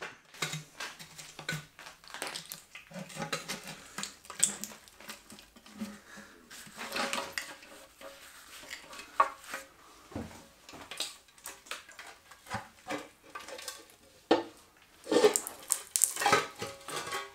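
Irregular metal clinks, clanks and scrapes of hand tools and engine parts being handled during a diesel engine teardown, with the loudest clanks near the end.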